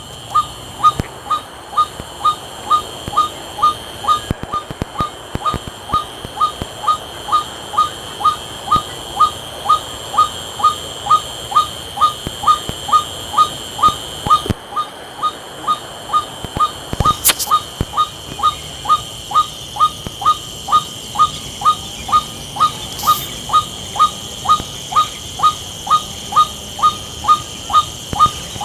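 A bird repeating a single short whistled note, falling slightly in pitch, about twice a second in an even, unbroken series.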